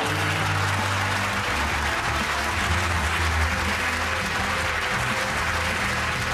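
Studio audience applauding over music with held low notes.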